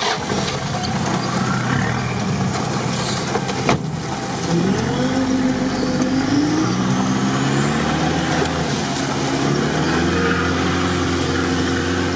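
Engine of an off-road 4x4 heard from inside the cab while it drives a rough track, its pitch rising and falling with the throttle. A single sharp knock comes about four seconds in.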